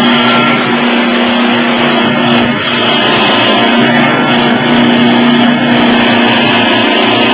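CNC wood-turning lathe running, its tools cutting a spinning wooden blank: a loud, steady mix of cutting noise and motor hum.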